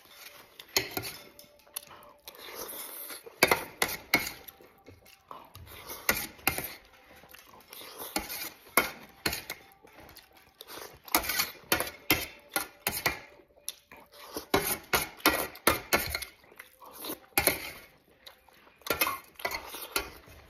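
A metal spoon scraping and clinking again and again against an enamel plate as rice is scooped up and eaten, in irregular sharp clicks and short scrapes, with eating sounds between.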